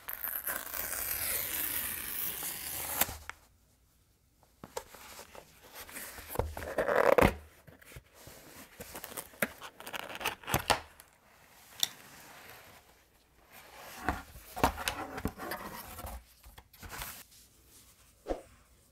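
Cardboard shipping box being torn open by hand: a long, loud tearing for the first three seconds or so, then scraping, rustling and sharp knocks of cardboard as the flap is opened and the phone box is slid out.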